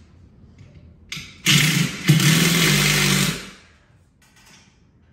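An electric power tool's motor runs in two short bursts, about two seconds in all, with a brief break between them.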